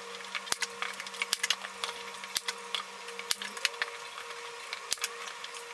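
Irregular sharp clicks and taps of metal canvas pliers and hands working on a wooden stretcher frame, over a faint steady hum.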